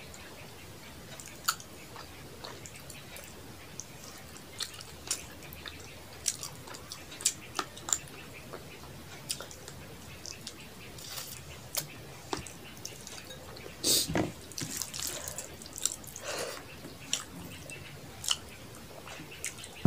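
Close-miked eating sounds: fingers mixing rice with fish curry, and wet mouth smacks and chewing, heard as a scatter of short wet clicks that are busiest about fourteen to sixteen seconds in.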